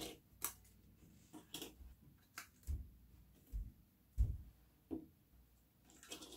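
Small plastic paint pots having their snap-on lids prised off and being set down on a table: a scattered run of short, quiet clicks and taps.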